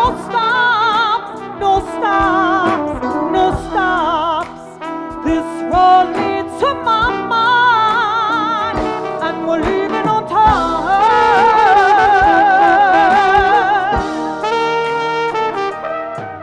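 Live band music: a woman singing and a trumpet playing over electric guitar and drum kit, with long wavering held notes about two-thirds of the way through.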